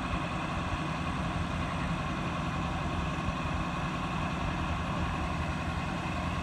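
An engine idling steadily: a constant low hum with a few steady, unchanging tones above it.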